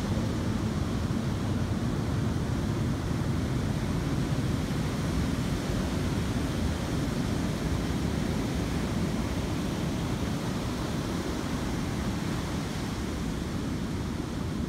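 Ocean surf breaking and washing around a rock jetty: a continuous rushing noise, heaviest in the low end, easing slightly near the end.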